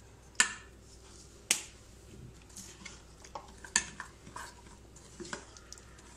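A few sharp clicks and knocks, the loudest about half a second and a second and a half in and again near the middle, then a spoon stirring and scraping thick semolina (rava) batter in a metal bowl.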